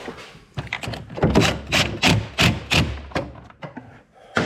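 Quick run of about ten knocks and clunks, roughly three a second, as the truck's battery terminal is worked back on and tightened with a 10 mm wrench; one more knock near the end.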